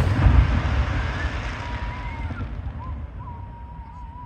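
Low rumble and echo of an aerial firework shell's burst rolling away and fading over about three seconds.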